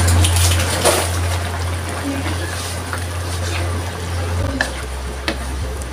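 Thick sauce trickling from a pouch into a wok of boiling beef stew, then a wooden spoon stirring it, with a few sharp knocks of the spoon against the aluminium wok. A steady low hum underneath drops off sharply about four and a half seconds in.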